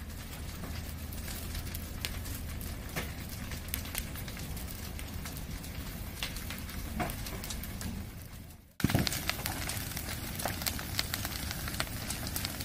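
Wood-frame garage fire burning: a steady rush of flames with frequent sharp crackles and pops. A brief dropout comes about nine seconds in, and then the fire is louder with denser crackling.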